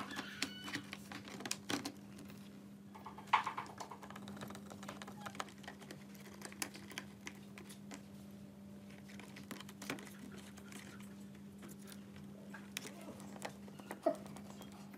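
Small clicks and taps of hands handling a MacBook's plastic and metal parts as the display assembly and its cables are fitted into the bottom case, with two sharper clicks, one about three seconds in and one near the end. A steady low hum runs underneath.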